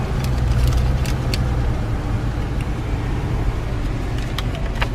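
Low, steady engine and road rumble heard from inside an SUV's cabin as it pulls away, heaviest in the first second and a half. A few light clicks and rustles sound in the cabin.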